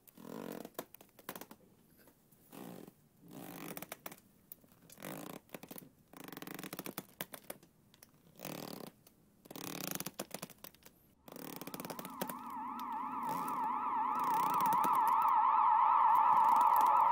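A string of short, breathy sounds a second or two apart. From about 11 seconds in, a wavering, siren-like tone comes in and swells steadily louder.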